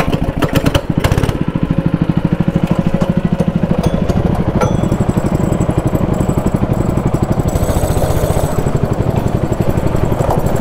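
Go-kart's small engine running just behind the driver's seat with a fast, even putter, as the kart moves off.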